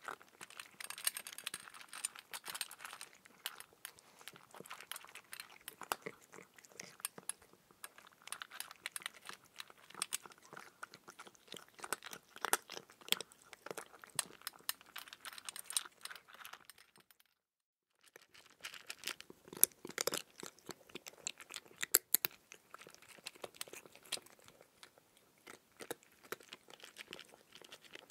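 Close-up chewing of raw cucumber: crisp wet crunches and crackles, one after another, with a few louder bites. The sound cuts out completely for about a second roughly two-thirds of the way through.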